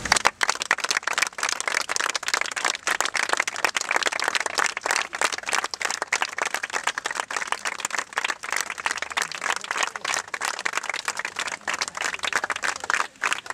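A small crowd applauding: many hands clapping in a dense, steady patter.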